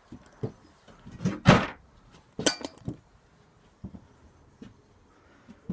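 Irregular knocks and clunks of objects being handled, with a louder rush of noise about one and a half seconds in and another clatter about a second later.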